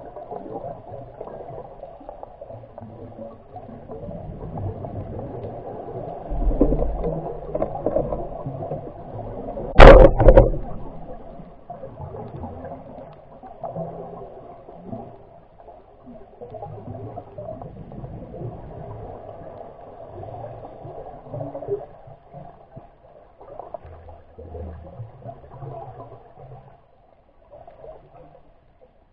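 Muffled underwater ambience picked up through an underwater camera's housing: a low, shifting rumble and wash of water. There is one loud, sharp knock about ten seconds in.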